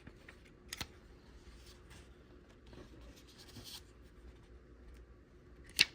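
Faint rustling and scraping from a small paperback book being handled and leafed through, with a light click a little under a second in and a sharper click near the end.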